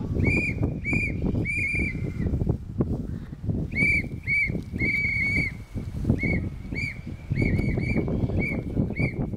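A whistle blown in short, shrill blasts, in three runs separated by brief pauses, the last run quick and many-blasted: a wake-up call to campers sleeping in their tents.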